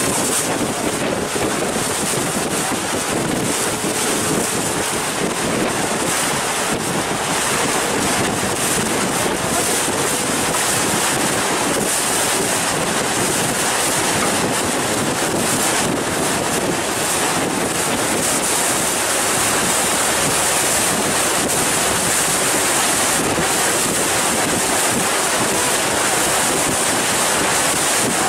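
Wind rushing over the microphone and water washing past a moving harbour ferry, steady, with a faint steady hum under it.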